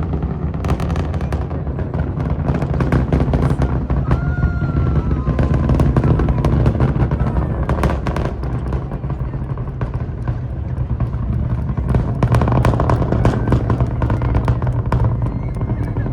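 Space Launch System rocket climbing after liftoff, its deep continuous rumble shot through with rapid crackling from the exhaust.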